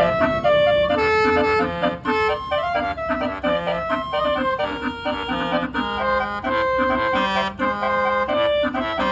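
A bus's musical air horn set, driven by a Bintang 48-note horn module, playing a fast tune. Its trumpets sound many short notes, several at once, over a repeating low note.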